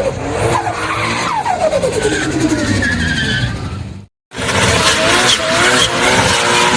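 Holden VL Turbo Commodore's turbocharged 3.0-litre straight-six engine revving, its pitch falling away several times. About four seconds in the sound cuts off abruptly, then resumes with the engine running under a wavering, higher-pitched tone.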